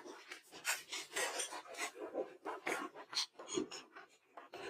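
Close-miked eating sounds: chewing and mouth noises coming in short, irregular bursts, a few a second.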